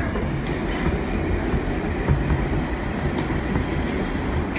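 R143 subway car running through a tunnel, heard from inside the car: a steady rumble of wheels on rail with a few faint clicks.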